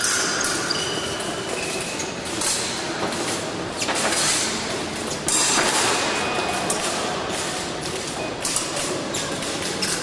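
Épée bout in progress: fencers' footwork thumping on the piste and blades clicking together, a scatter of short knocks over a steady background hall noise.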